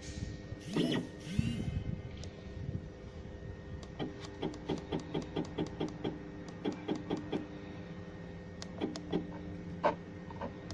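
CNC router's axis motors jogging the gantry in a quick series of short steps, about three a second, over a steady electrical hum from the machine.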